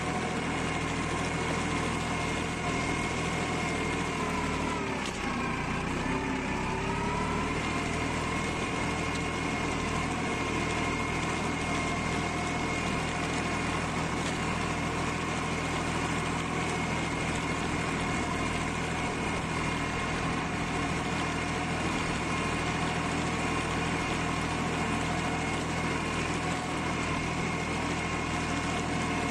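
Erkunt Kısmet 55e B orchard tractor's diesel engine running steadily under load as it pulls a nine-tine cultivator through soil. About five seconds in, the engine note sags and then climbs back within a couple of seconds.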